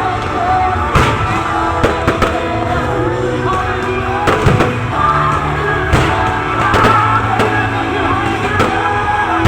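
Fireworks going off in a string of sharp bangs every second or so, over loud music playing for the display.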